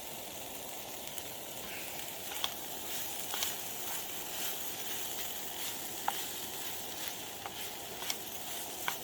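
Chicken and vegetables sizzling steadily in a frying pan on a camping stove, with occasional sharp pops.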